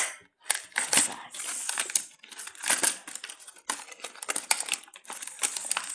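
Earphone packaging crinkling and rustling in irregular bursts as it is handled and pulled apart to free tightly packed earphones.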